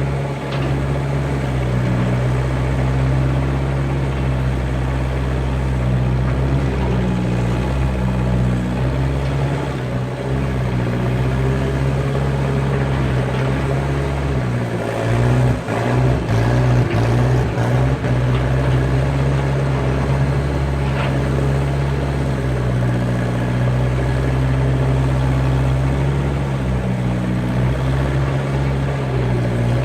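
Skid steer engine running steadily under load, its pitch shifting a little as it works. There are a few knocks and jolts about halfway through.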